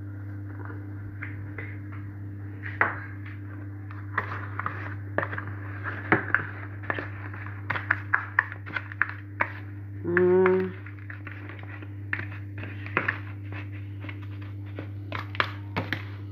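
Spoon tapping and scraping against a bowl and baking tray, many short irregular clicks and knocks, as breadcrumb coating is spread over raw fish fillets, over a steady low hum. A brief vocal sound cuts in about ten seconds in.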